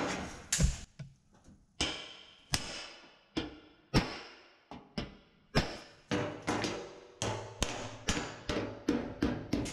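Hammer blows on a brick set held against the top edge of a metal car fender, driving the flange in to relieve the stress that holds the dent down. Sharp metallic strikes, each with a short ring, spaced out at first and quickening to about two or three a second from about halfway.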